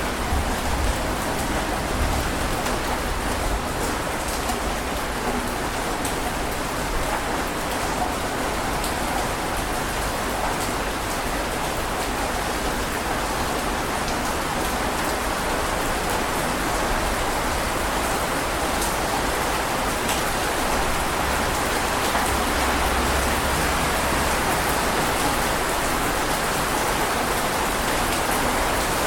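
Steady rain falling, a continuous hiss of drops striking a surface, with a few faint individual drop ticks.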